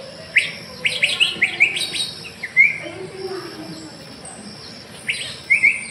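Philippine fairy-bluebird calls played back through an exhibit speaker: a quick run of about ten short, sharp notes in the first few seconds, then a second short run near the end.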